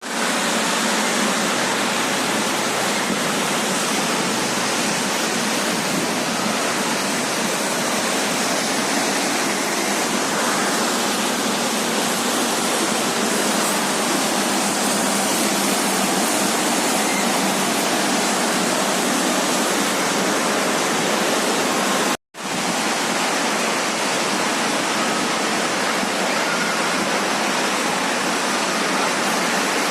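Heavy rain falling steadily, a dense even hiss of water, with the sound cutting out for a moment about two-thirds of the way through.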